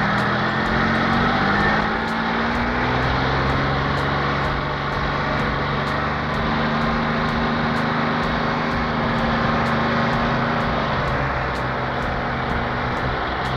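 Car engine sound effect running steadily, a continuous hum whose pitch drifts slightly.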